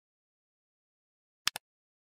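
Silence, then a computer-mouse click sound effect about one and a half seconds in: two quick clicks a tenth of a second apart.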